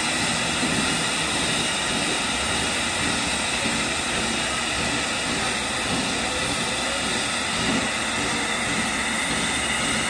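Steady, loud hiss of steam escaping from a fitting on top of the boiler of CNJ 113, a 1923 ALCO 0-6-0 B7 switcher steam locomotive, with the boiler under steam during its fire-up.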